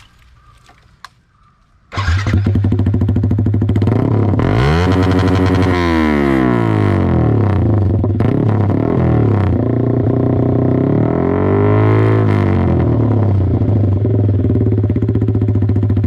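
Yamaha R15 V3's single-cylinder engine through an SC-copy free-flow aftermarket silencer, which comes in suddenly about two seconds in and idles loudly. It is revved twice, the pitch rising and falling back to idle each time.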